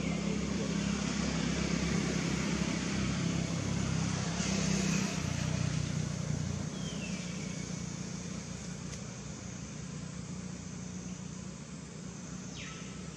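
Low, steady engine rumble of a motor vehicle over outdoor background noise, dying down about halfway through. Two short falling whistles, one about seven seconds in and one near the end.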